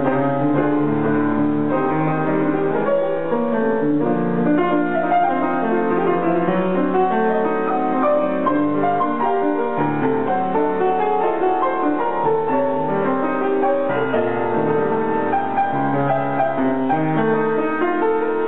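Grand piano being played, a steady flow of many overlapping notes.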